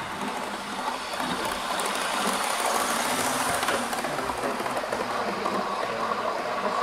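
Model railway train running on the layout's track, a steady running rattle.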